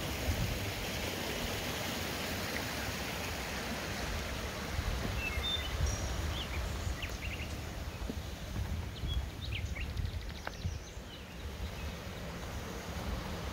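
Steady rush of a small creek, with low wind rumble on the microphone and a few short, high bird chirps about halfway through.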